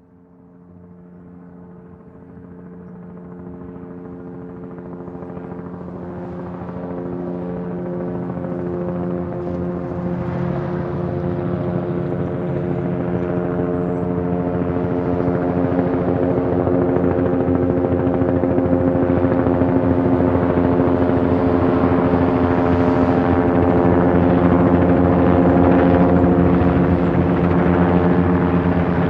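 Helicopter rotor chop and engine whine at a steady pitch, growing steadily louder through the first half and then holding steady.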